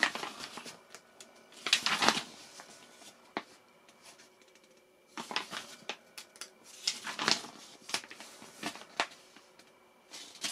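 Paper pages of an instruction manual being turned and handled: several short rustles and flaps, a second or two apart.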